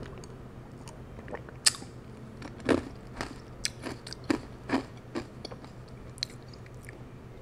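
A person drinking a cold drink from a glass with ice close to the microphone: a string of gulps and swallows with small sharp clicks between them.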